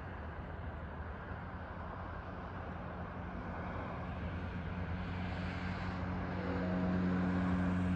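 Motor vehicle traffic: road noise with a low engine hum that grows louder over the second half.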